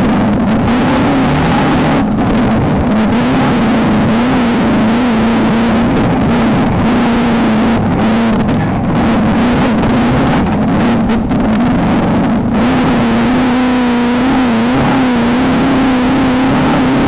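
Off-road desert race car's engine running hard at high, fairly steady revs, its pitch wavering a little, over heavy wind and road noise.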